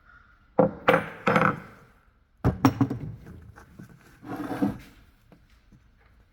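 Several sharp knocks and clatters of hard parts and tools being handled while working on a string trimmer's drive shaft housing: three close knocks, then a second group about two seconds later, and a brief scraping rustle after the middle.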